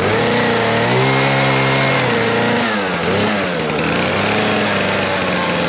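Husqvarna two-stroke chainsaw running at high revs while cutting into a log. Its pitch sags about halfway through as the chain bogs in the wood, then climbs back.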